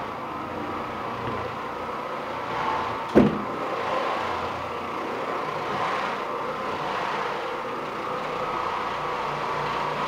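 Oreck Orbiter floor machine's electric motor running steadily, with one sharp knock about three seconds in.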